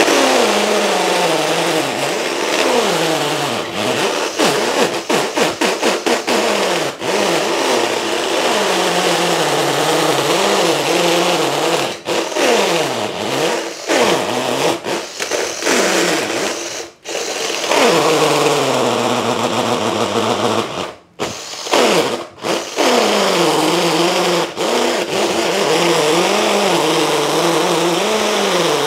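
Cordless impact drill (Mollar MLR-CID20500-U) boring a long masonry bit into a concrete block under heavy, sustained load. The motor pitch sags and recovers over and over as the bit bites, with brief stops about 17 and 21 seconds in.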